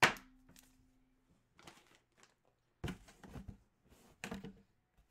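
A sharp knock, then cardboard and packaging rustling and bumping in short bursts as a hand reaches into a cardboard shipping box and handles the folded jerseys inside.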